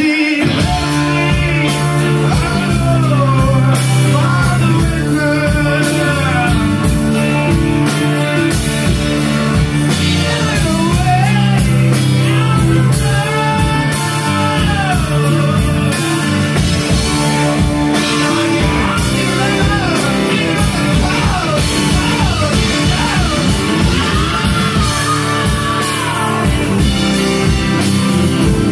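Live rock band playing at full volume: electric bass, electric guitar and drum kit, with a singer's voice gliding over them.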